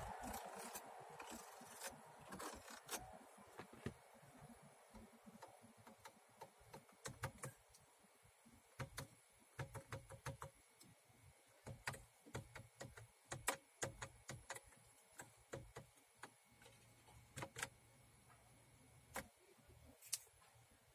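Irregular faint clicks from the buttons and the turning Sound knob of a Volvo XC90 dashboard radio, over near silence, with no audio heard from the radio itself.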